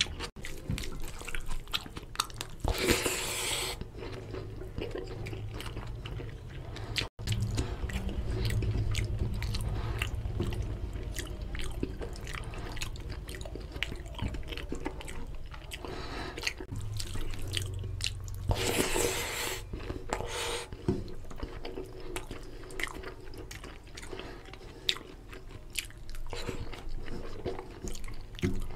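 Close-miked chewing and mouth sounds of a man eating oily mutton curry and mutton trotters with rice: many small wet clicks and smacks, with two longer rushing sounds about three seconds in and about two-thirds of the way through.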